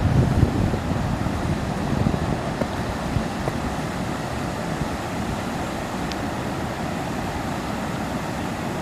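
Steady rushing of a waterfall. In the first few seconds, wind buffets the microphone.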